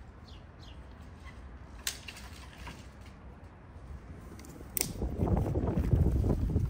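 Quiet outdoor background with a few short bird chirps. About five seconds in, dry twigs and branches rustle and click loudly as they are gathered and handled by hand.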